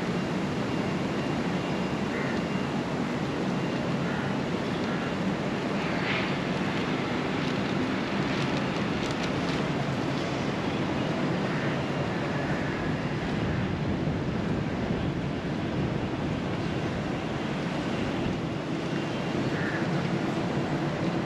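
Steady outdoor city ambience: an even, low hum of traffic. A few faint, short higher sounds stand out about six seconds in and again near the end.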